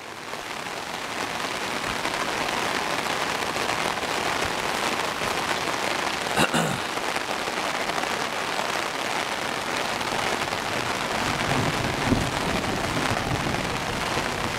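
Heavy rain falling steadily and hitting an umbrella close overhead. There is one short sharp sound about six and a half seconds in. A low rumble builds in the last few seconds.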